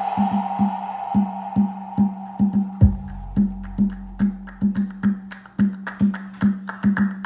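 Electronic pop song played back through small custom bookshelf speakers with Dayton PS95-8 full-range drivers and Tang Band W5-2053 subwoofers. Sharp percussive clicks come two or three a second over a steady bass note. A deep bass line comes in about three seconds in.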